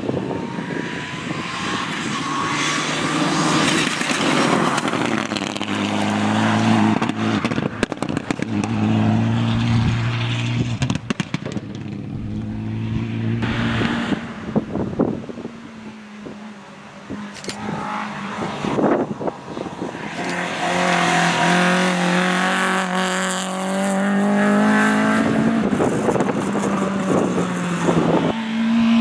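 Several rally cars driven hard through a bend one after another, their engines revving up and dropping back with each gear change. Scattered sharp pops and cracks come between the revs, and a brief lull falls about halfway through.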